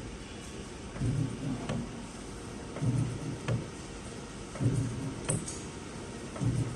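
Automatic soldering robot's axis motors making short low hums that repeat about every two seconds, with a sharp click between moves, as the machine runs through its cycle.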